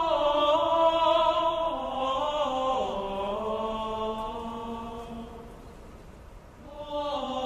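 Soundtrack music of chanting voices singing slow, long-held notes. The phrase fades away about six seconds in, and another begins near the end.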